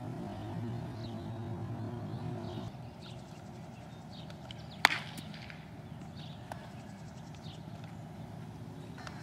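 A single loud, sharp crack of a baseball impact about halfway through, followed by a fainter click a couple of seconds later. Faint bird chirps throughout, and a low hum that stops about three seconds in.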